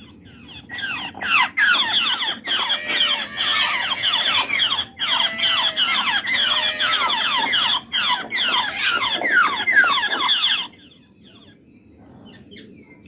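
Recorded babbler calls played back through a small portable MP3 speaker: a dense chorus of quick, falling chattering notes that starts about a second in and cuts off suddenly near the end. The playback is a lure to draw babblers into a net trap.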